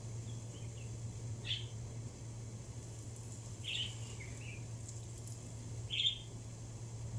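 Birds chirping: short separate calls about every two seconds, over a steady low hum.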